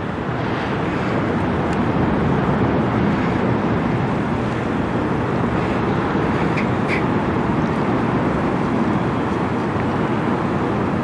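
Steady low rumble of a large bulk carrier's engines and machinery as the ship passes close by, with a broad rushing noise over it. The sound swells a little in the first couple of seconds and then holds level.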